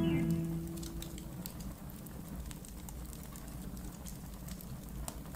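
Outro music dying away within the first second, then a low rumble with scattered, irregular faint clicks and crackles.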